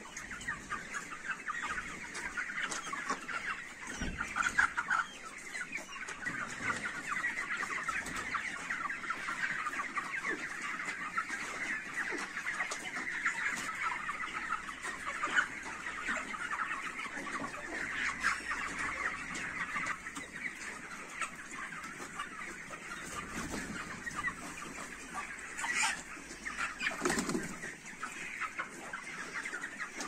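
A flock of young broiler chickens calling, a dense, steady chatter of many overlapping short calls.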